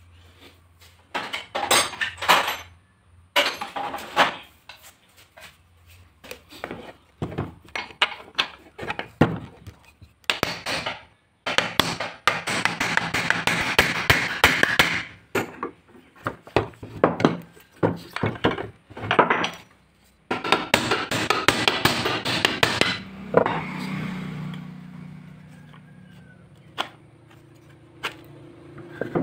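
Ball-peen hammer tapping a new ball bearing into the housing of an electric hand planer: many sharp metal knocks, in two places coming in fast runs lasting a few seconds. Near the end the knocking stops and a low steady hum comes in.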